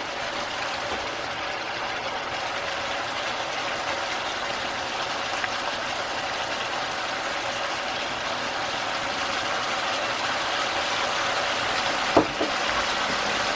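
Squid and cucumber stir-fry sizzling steadily in a frying pan, with one short knock about twelve seconds in.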